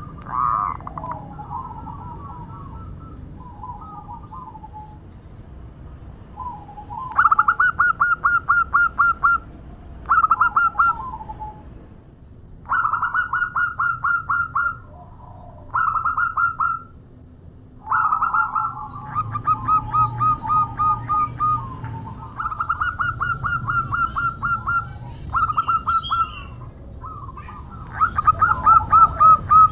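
Zebra dove (perkutut) calling: repeated bouts of rapid staccato coos, about five a second, each bout lasting one to two seconds, with softer warbling coos in the first few seconds. A female's call to a male.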